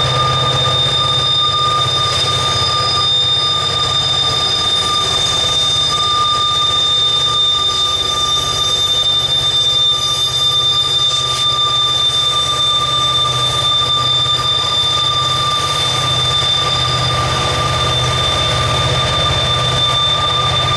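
Two Norfolk Southern SD70ACU diesel-electric helper locomotives, with EMD 16-cylinder two-stroke diesels, working hard under load as they pass slowly on the grade. A steady low engine rumble with a steady high whine over it.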